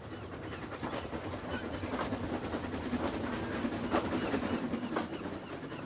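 Isle of Man Railway narrow-gauge steam tank locomotive and its coaches running past, with wheels knocking over rail joints about once a second. The sound swells as the train nears, peaks about four seconds in, then fades. Birds call now and then.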